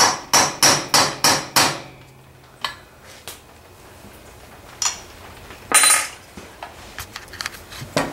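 Ball peen hammer striking a punch, six quick blows in under two seconds, driving a poly vent tube into the oil vent hole of a Husqvarna 394XP/395XP crankcase. Then a few lighter taps and knocks follow, the loudest about six seconds in.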